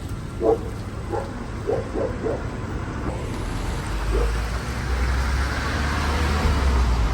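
Bus engine rumble and road noise heard from inside the bus, with a hissing rush that swells over the second half. Faint voices can be heard in the first two seconds.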